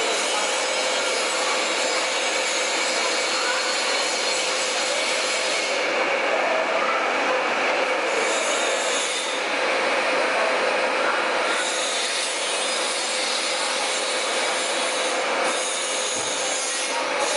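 CNC machine running and cutting, a steady rasping noise with a constant whine under it that eases and returns slightly a few times.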